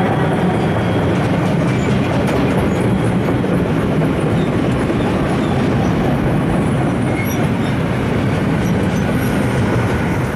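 Freight wagons of a long freight train rolling past close by: a steady, loud rumble and clatter of wheels on the rails, with a few faint, short high squeaks.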